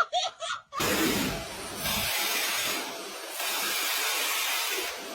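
A loud, steady rushing hiss starts about a second in and cuts off abruptly at the end.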